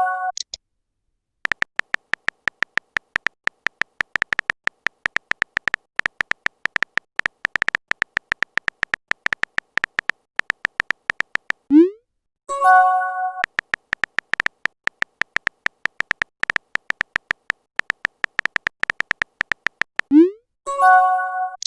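Synthesized electronic sound effects: a long run of rapid short beeps, many per second, broken twice by a quick rising swoop and a brief synth chord.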